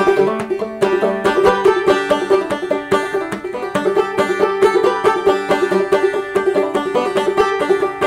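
Gold Tone five-string banjo played clawhammer (frailing) style: a steady, fast stream of bright plucked and brushed notes in a folk tune.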